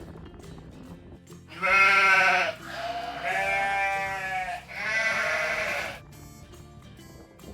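An animal bleating three times in long, loud calls, each about a second or more, over quieter background music.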